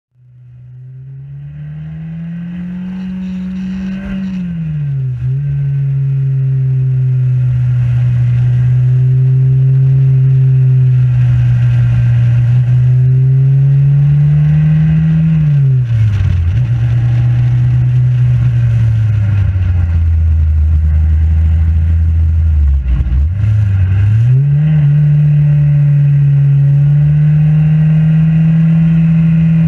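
Xenon racing car's engine heard from the cockpit at racing speed, its note climbing as the car accelerates and dropping sharply under braking into corners several times. It fades in at the start, then runs loud.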